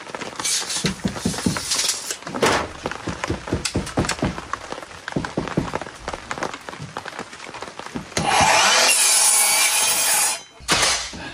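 Knocks and scrapes as a tongue-and-groove wood paneling board is handled and lined up on a miter saw. Near the end the miter saw runs and cuts through the board for about two seconds, then stops suddenly.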